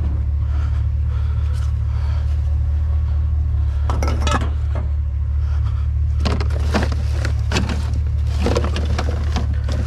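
A pickup truck's engine idling steadily, with the clatter and clinks of metal and plastic scrap being handled and dropped into the loaded truck bed, busiest about four seconds in and again from about six seconds on.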